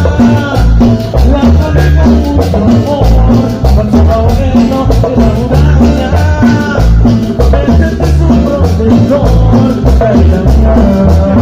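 Cumbia music played by a band, with a heavy bass beat and a continuous rhythm.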